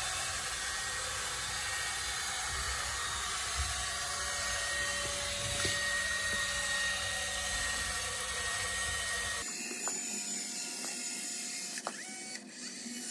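Motor of a battery-powered DeWalt dual-cartridge dispensing gun running steadily with a faint whine as it pushes thick polyurea joint filler out through the mixing tip into a floor joint. It stops about nine and a half seconds in, and a few small clicks follow.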